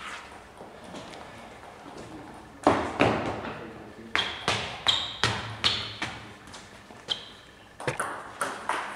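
Table tennis ball struck back and forth in a rally: sharp clicks of the ball on the bats and the table, about three a second, some with a short high ping. They start a few seconds in, pause briefly and resume near the end.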